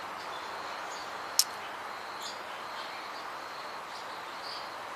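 Outdoor background with a steady faint hiss and a few faint, short bird chirps, broken by one sharp click about a second and a half in.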